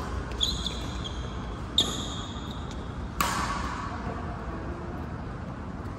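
Badminton rally: three sharp racket-on-shuttlecock hits about a second and a half apart, the first two with a brief high ringing ping, over a steady low hum in the hall.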